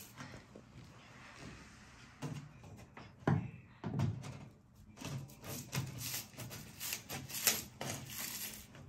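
A screwdriver prying a wooden ceiling molding strip away from a water-damaged ceiling: scattered scrapes, creaks and small knocks of wood and metal, coming thicker in the second half.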